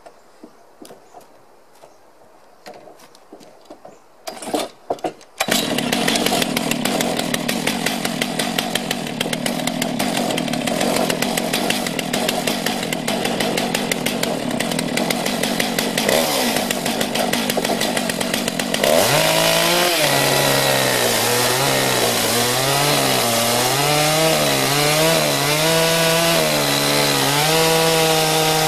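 Stihl MS 661 two-stroke chainsaw with a 36-inch bar, mounted in an Alaskan chainsaw mill. It starts after a few short pulls about five seconds in and runs steadily. About nineteen seconds in it is opened up and rips lengthwise into the log, its engine speed wavering as the chain works through the wood.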